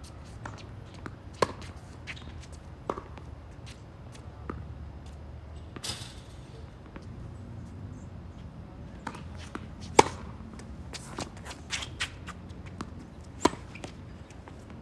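Irregular sharp clicks and knocks, the loudest about ten seconds in, with a brief hiss about six seconds in, over a low steady hum.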